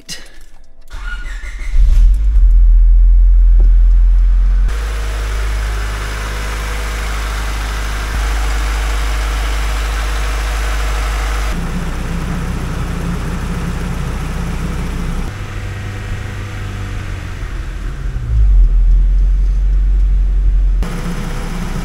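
A 1999 Honda Civic's D16Y8 1.6-litre four-cylinder engine starts about a second in and runs at a steady idle, warming up so the air can be burped out of the coolant after a thermostat replacement. Its level steps up and down abruptly several times.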